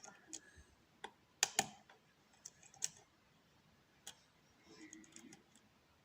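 Small, irregular metallic clicks of a lock pick working the pin stack of a Eurospec MP5 euro cylinder under tension. The loudest are two close clicks about a second and a half in, with a few scattered single clicks and a soft cluster near the end.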